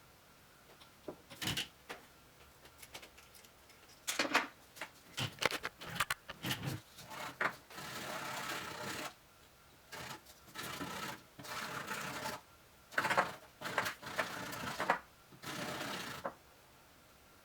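Clicks, knocks and rasping scrapes of hands working hard tubing and fittings into a water-cooling loop, some scrapes lasting about a second.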